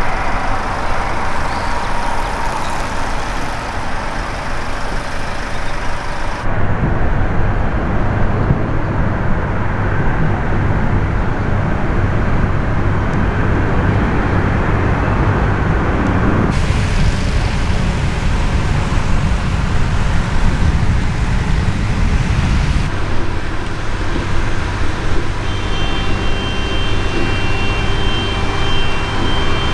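Jet engine noise from Eurofighter Typhoons' twin Eurojet EJ200 turbofans: a loud, steady noise whose character changes abruptly three times. A steady high whine joins near the end.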